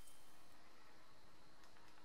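Low, steady hiss of room tone, with two faint light ticks near the end.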